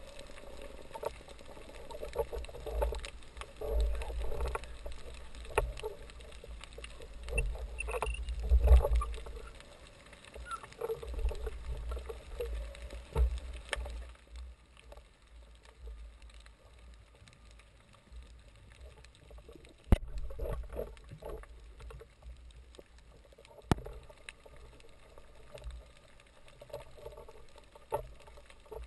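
Muffled underwater sound heard through a camera's waterproof housing: uneven low rumbling and sloshing of water with scattered sharp clicks and knocks. It drops quieter about halfway through.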